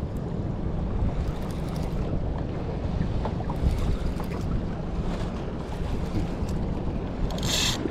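Wind buffeting the microphone and open sea water around a small boat, a steady low rumble, with faint clicks from a spinning reel being cranked. A short hiss comes near the end.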